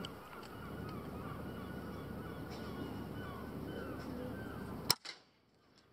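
A single shot from a pre-charged pneumatic air rifle about five seconds in: one sharp crack over steady background noise, with a fainter knock a moment after it. It is a pest-control shot at a feral pigeon.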